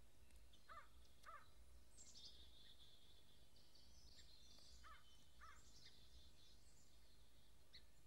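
Faint woodland birdsong. One bird gives short calls in pairs, half a second apart, once near the start and again about five seconds in, over continuous higher twittering and trills from other birds.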